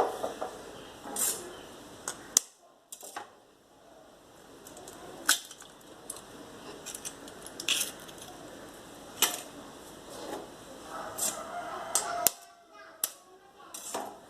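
Sharp taps and clicks at irregular intervals as two eggs are cracked against a bowl and broken into it.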